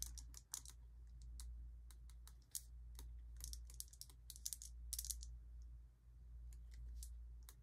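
Faint, irregular taps and short scratches of a pen writing on a paper tracker sheet, over a low steady hum.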